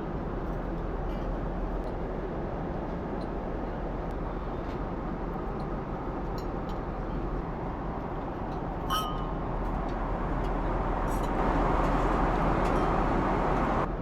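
Steady cabin noise of a jet airliner in flight, an even rush of engine and airflow noise. A brief ringing click comes about nine seconds in, and the noise grows louder and brighter for the last few seconds.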